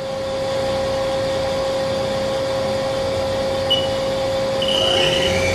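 2003 Haas SL-30T CNC lathe spindle running at about 600 RPM with a steady hum. Near the end a high whine comes in and starts to rise in pitch as the spindle begins to speed up.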